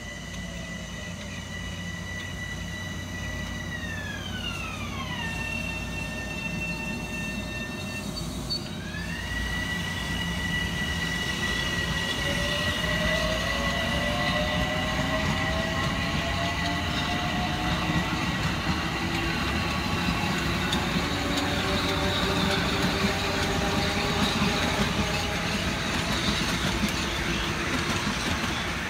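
Bombardier M7 electric train passing close by, wheels running on the rails, growing louder as it goes by. Its high electric whine slides down in pitch a few seconds in and jumps back up about halfway through the approach, then slowly rising tones follow as the cars pass.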